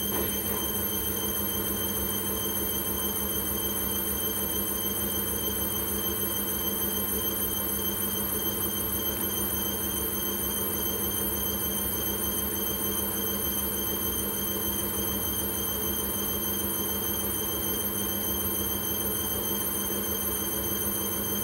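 Hisense front-loading washing machine running in its spin cycle: a steady motor hum with a constant high whine, holding the same pitch throughout.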